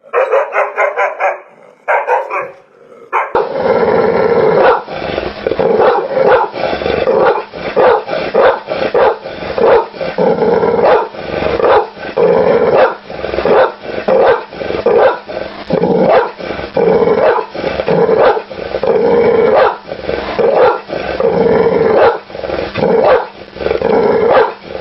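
Dog barking over and over in quick succession, several barks a second with hardly a break. About three seconds in, a different barking recording takes over and runs on steadily.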